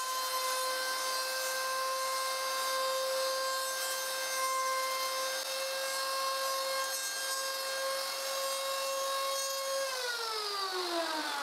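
Plunge router running with a steady high whine, its bit cutting wood as the guide bushing is slid around the jig's hole to mill a round wooden tenon. About ten seconds in it is switched off and the whine falls in pitch as the motor spins down.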